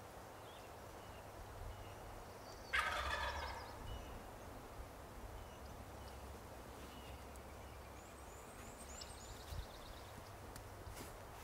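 A wild turkey gobbler gobbles once, about three seconds in: a single rolling gobble lasting about a second.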